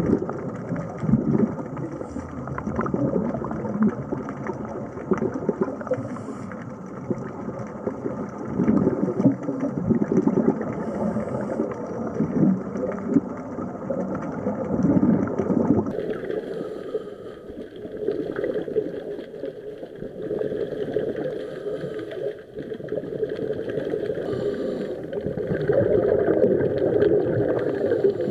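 Underwater noise picked up through the camera housing: a continuous churning rumble with bubbling that rises and falls, its tone shifting about halfway through.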